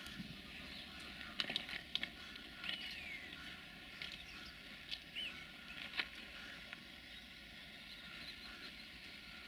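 Faint steady background hum with a few short bird chirps, one falling briefly in pitch, and scattered light clicks.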